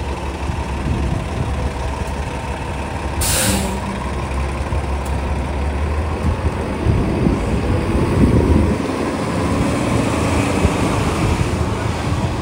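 City street traffic dominated by a heavy vehicle's engine running close by. About three seconds in, its air brakes let out a short, sharp hiss.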